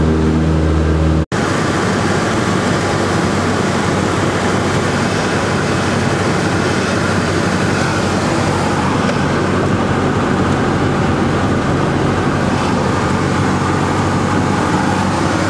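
Steady drone of a Cessna 172's piston engine and propeller in flight, heard inside the cockpit. About a second in it drops out for an instant at an edit, then carries on as a steadier, noisier rush of engine and airflow.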